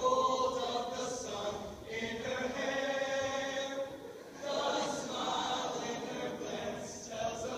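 Voices chanting without clear words, holding long pitched notes broken by short pauses.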